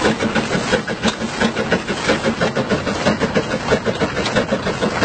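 Narrow-gauge steam locomotive running, its working noise coming as a rapid, uneven beat of pulses, several a second.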